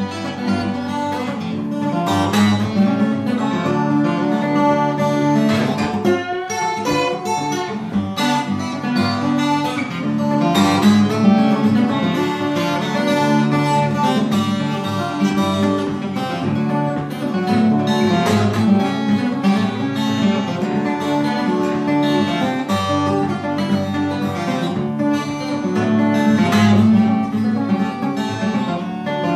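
Twelve-string acoustic guitar played solo: a continuous picked and strummed tune with a bright, ringing twang.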